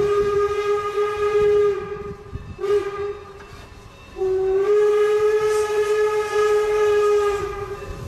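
Steam locomotive whistle blowing a long blast, a short toot, then another long blast, over the low rumble of the locomotive working hard as it plows through snow drifts.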